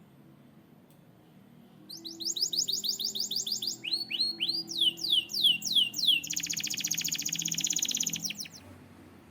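Canary singing: a phrase of repeated quick descending whistled notes starting about two seconds in, then a fast, even rattling trill that stops about a second before the end.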